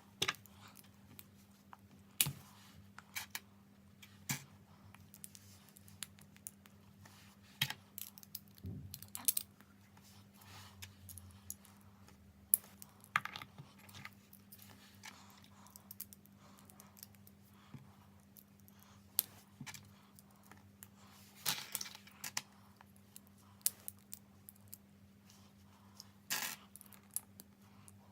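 Small plastic Lego pieces being handled and pressed together: scattered light clicks and rattles at an irregular pace, over a faint steady low hum.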